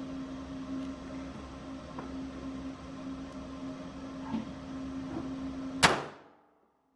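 A steady hum, then about six seconds in a single sharp shot from a Kel-Tec PMR30 .22 Magnum pistol with a brief ringing tail, after which the sound cuts to silence.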